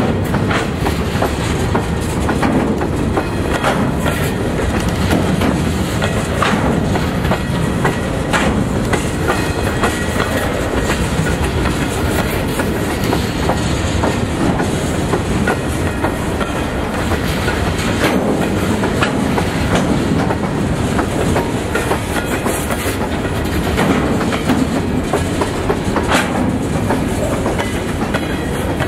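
Freight cars of a New York & Atlantic Railway train rolling past close by in a steady rumble, with scattered sharp clacks of wheels over the rail joints.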